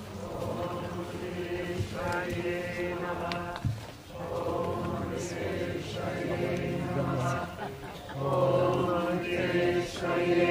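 Voices chanting in long, held phrases with short breaks between them.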